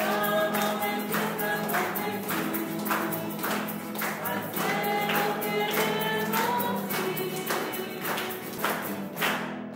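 Music with singing voices over a steady, quick percussive beat and a low held note.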